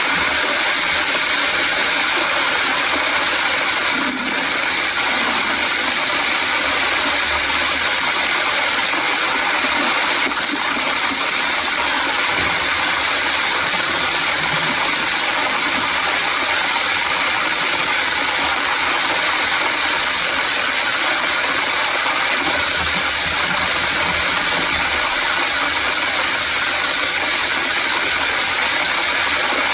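Heavy rain falling on a vehicle's windscreen and roof, heard from inside as a loud, steady hiss, with a faint low rumble coming and going underneath.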